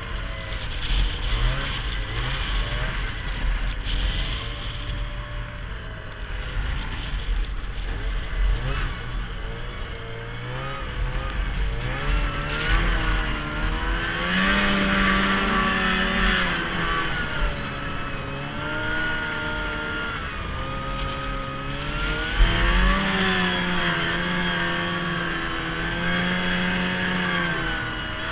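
Arctic Cat 440 snowmobile's two-stroke engine running under throttle, its pitch climbing as it revs up about twelve seconds in and again near the end, then wavering as the throttle is eased and reapplied. A single sharp knock comes just as the second rev begins.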